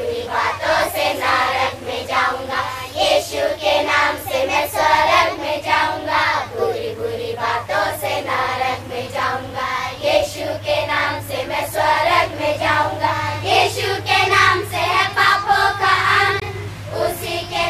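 A group of young girls singing a song together in unison.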